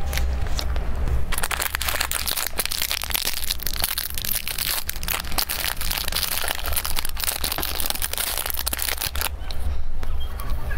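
Thin plastic wrapper of a small packaged cake crinkling and rustling as it is opened by hand, a dense run of crackles from about a second in until about nine seconds, over a steady low hum.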